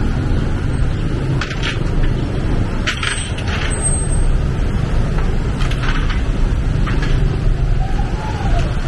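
Steady low rumble of street noise, with several short light clicks or clinks scattered through it.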